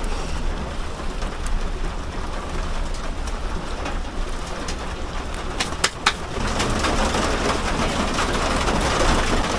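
Rain mixed with hail drumming on the metal body of an armored vehicle, heard from inside. There are a few sharp ticks of single hailstones, and the downpour grows louder about six seconds in.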